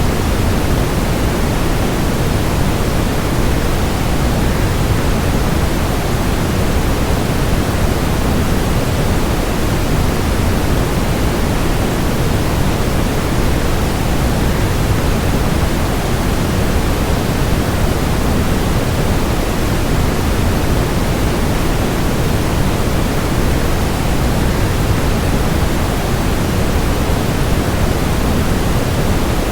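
Waterfall: a steady, unchanging rush of falling water, heaviest in the low end.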